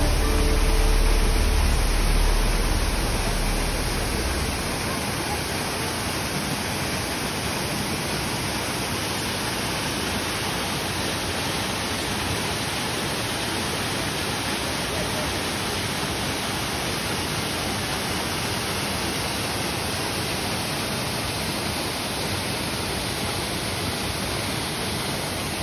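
Steady rushing roar of falling and flowing water from a waterfall into a river pool. Low background music fades out in the first few seconds.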